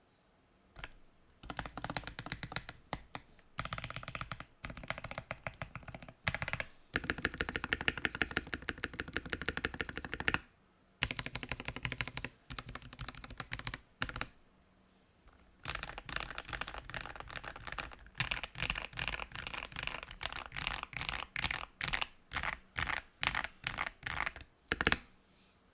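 Gamakay TK68 mechanical keyboard with lubed Gateron KS-9 Yellow switches and a PE foam mod, typed on in quick bursts of keystrokes separated by pauses of about a second. Near the end the typing thins out to separate, spaced keystrokes.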